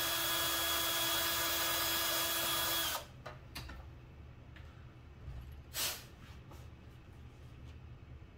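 Cordless drill running at a steady speed with an even whine, cutting off abruptly about three seconds in. A few light clicks follow, then a short louder knock a little past halfway.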